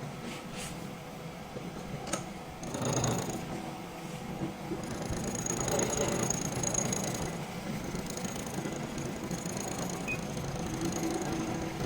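A homemade valve-relief cutter machining a valve pocket into a piston crown: a steady, uneven scraping and grinding as the cutter works the metal, with a thin high whine coming in about five seconds in.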